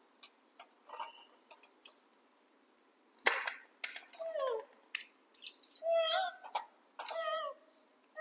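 Young macaques squeaking and making short calls, several sliding down in pitch, with a few very high squeaks, starting about three seconds in after a sharp click; before that only faint ticks.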